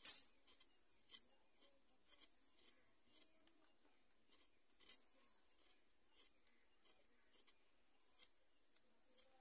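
A knife working on raw potatoes by hand: faint, irregular scrapes and small clicks, with sharper ones at the start and about five seconds in.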